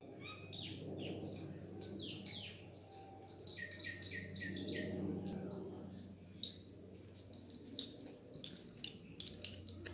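Birds chirping and calling outdoors: quick descending chirps throughout and a run of short repeated notes about four seconds in, over a faint steady low hum.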